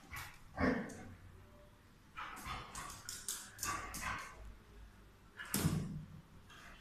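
Dogs at play: a series of short barks and yips with pauses between. The loudest comes near the end, another about half a second in, and a run of them in the middle.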